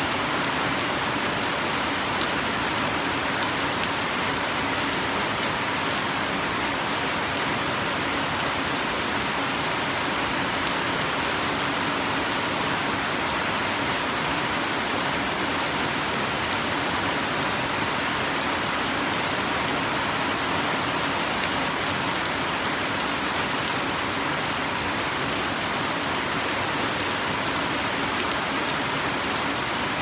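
Steady rain falling on wet pebble-studded concrete pavement: an even, unbroken hiss of drops hitting the surface.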